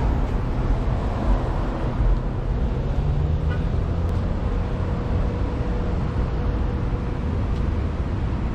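Steady city street traffic noise, heaviest in the low end, without a break.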